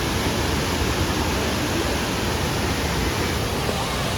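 Waterfall's falling water: a steady, even rush of noise.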